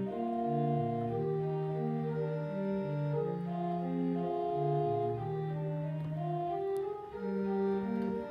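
Two-manual church organ played in slow, sustained chords, the notes held and changing every second or so, with a short dip in loudness about seven seconds in.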